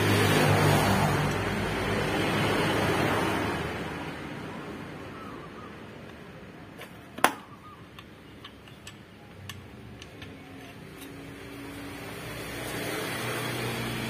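A vehicle passes by, its rush swelling and fading over the first few seconds. This is followed by small metallic clicks and one sharp click about seven seconds in as parts are fitted into a scooter's rear clutch hub by hand. The traffic noise builds again near the end.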